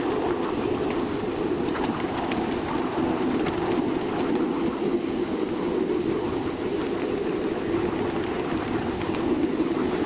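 Ridable live-steam miniature locomotive running along its track: a steady rush of escaping steam with scattered clicks of the wheels on the rails.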